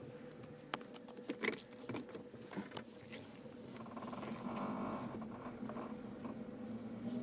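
Steady hum from a 2010 Jeep Wrangler JK, with a buzzing vibration that swells from about four to five seconds in: the strange vibration noise being recorded. Scattered light clicks and taps come in the first three seconds.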